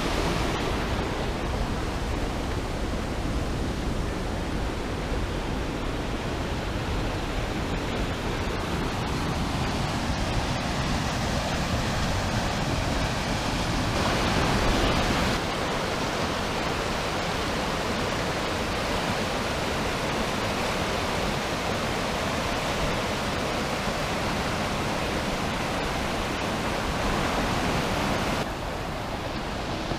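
Mountain stream rushing through white-water rapids: a steady noise of water, loudest about halfway through, dropping noticeably near the end.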